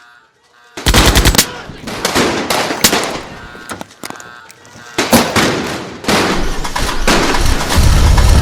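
Bursts of automatic gunfire: a rapid burst about a second in, then scattered shots and a second burst about five seconds in. A vehicle engine rumble comes up over the last couple of seconds.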